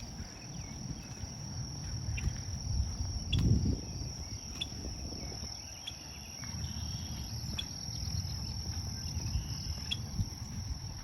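Steady high-pitched insect trilling, like crickets, with short chirps of a small bird hidden in a bush every second or two. Low rumbling noise runs underneath and swells about three and a half seconds in.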